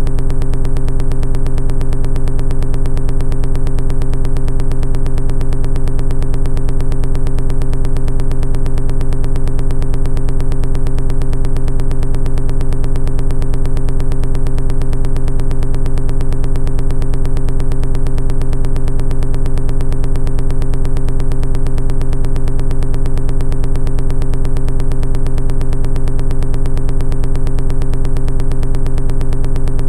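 Background music: a loud, steady synthesizer drone that does not change, with a fast even pulse.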